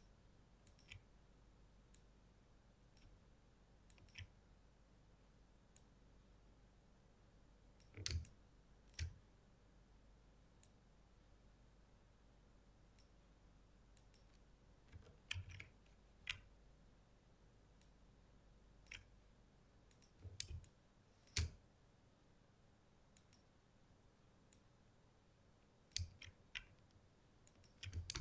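Computer mouse clicking at irregular intervals, single clicks and short clusters of two or three, over faint room tone: anchor points being placed one by one while tracing a path with the pen tool.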